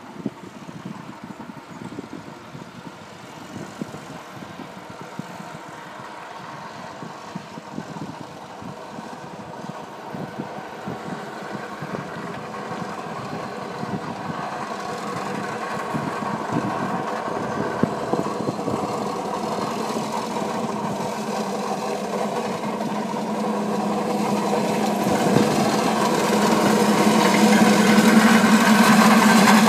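Engine of a small yellow construction machine running steadily, a hum of even pitch that grows steadily louder as the bicycle approaches and is loudest near the end.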